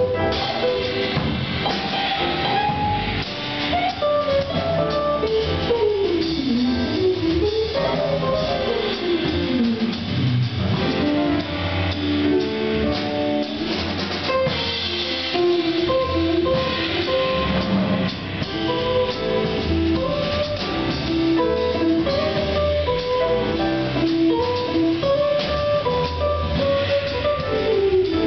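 Small jazz combo playing live: a guitar plays a melodic solo line over piano, bass and drum kit.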